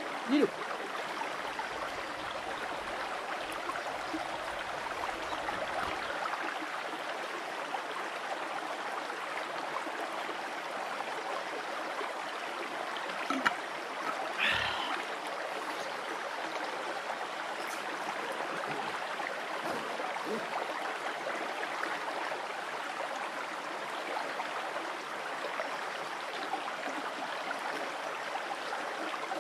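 Shallow woodland stream running steadily over rocks, with a few brief knocks about halfway through.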